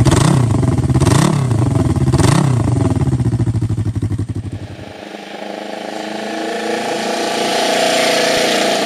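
Yamaha TX500 DOHC parallel-twin engine revved in three quick throttle blips over its idle. After about five seconds the sound changes to a TX500 being ridden, its engine note climbing steadily and growing louder as it accelerates.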